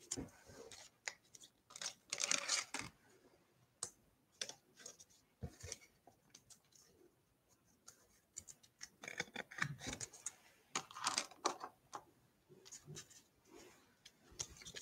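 Faint, intermittent rustling, scraping and small clicks of trading cards and a foil pack wrapper being handled as a pack is opened. The sounds come in clusters, about two seconds in and again between nine and eleven seconds.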